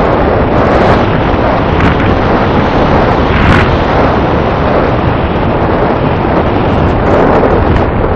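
Loud, steady rush of airflow buffeting the onboard camera's microphone on a Wing Dragon RC glider in flight, gliding with no motor heard.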